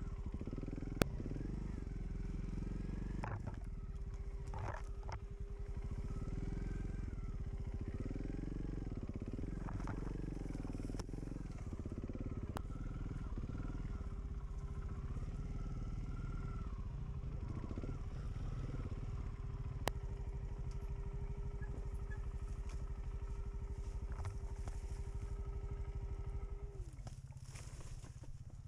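Off-road motorcycle engine running under the rider on a trail, the revs rising and falling again and again with throttle and gear changes, with a couple of sharp clicks. The engine note drops away near the end.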